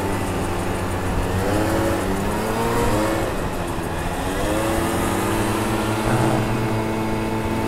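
Two-stroke scooter engine running on the move, its pitch rising and falling twice with the throttle, over wind noise.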